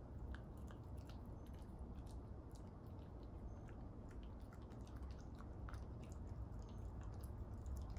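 A puppy chewing and biting mouthfuls of plain cooked spaghetti from a plate, with many small, quick, wet mouth clicks.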